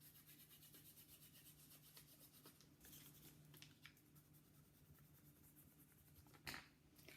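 Near silence, with faint scratching of coloring on paper as a paper volcano cone is colored in.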